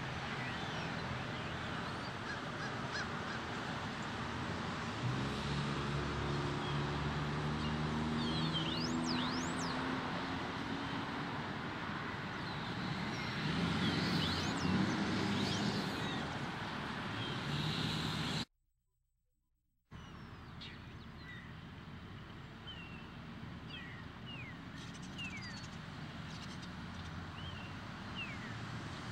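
Steady road traffic noise from a busy street, with one vehicle's engine rising and passing about five seconds in, and birds chirping on and off. The sound cuts out for a moment past halfway, then the traffic comes back quieter.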